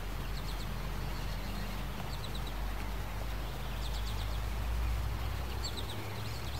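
Outdoor garden ambience: a steady low rumble, with high chirps in quick runs of four or five, repeating every second or two.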